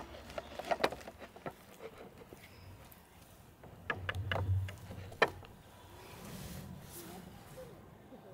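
Silicone whisk stirring batter in a glass mixing bowl, with scattered light taps and clicks against the bowl, most of them in a cluster around four to five seconds in.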